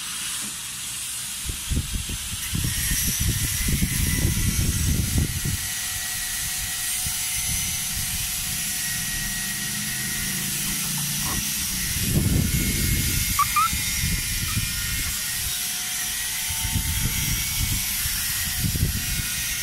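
Steady high hiss that cuts in abruptly, with irregular low rumbling gusts of wind on the microphone in three spells.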